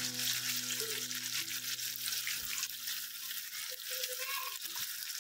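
Potato chips sizzling and crackling as they fry in hot oil in a pan, a steady dense crackle throughout.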